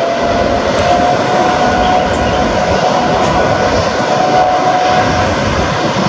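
Boeing 787-8's Rolls-Royce Trent 1000 turbofans at takeoff thrust during the takeoff roll: a loud steady roar with a fan whine that rises slightly, then holds steady.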